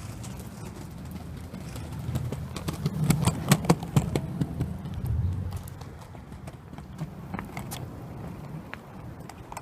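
Penny board rolling on pavement: a low wheel rumble that swells for a few seconds in the middle, with a quick run of sharp clacks at its loudest.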